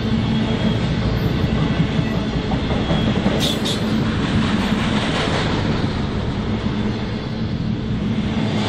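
Train rolling past close by: a steady rumble and clatter of wheels on the rails, with two brief high squeaks about three and a half seconds in.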